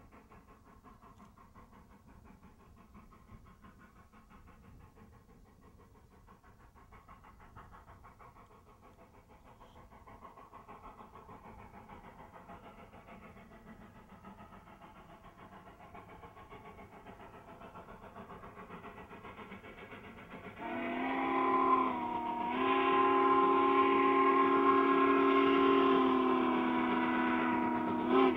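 Southern Pacific 4449's steam exhaust chuffing faintly in the distance, slowly growing louder. About 21 seconds in, its steam whistle sounds a long, loud blast of several notes at once, dipping briefly in pitch just after it starts. It breaks off at the very end and sounds again.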